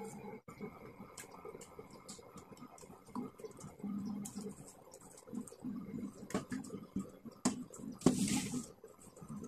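Pieces of galangal and lemongrass dropped by hand into a steel pan of coconut milk: scattered light plops, splashes and taps, with a brief rustle about eight seconds in.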